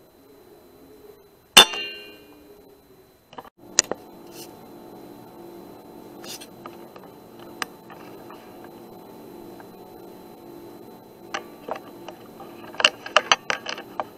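A single loud, sharp crack with a brief metallic ring about a second and a half in, typical of an air rifle (Kral NP-02) firing. A steady machine hum starts a couple of seconds later, and near the end comes a quick run of sharp metallic clicks and clinks.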